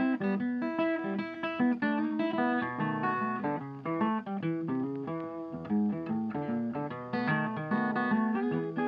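Background music: a guitar picking a melody, note after note.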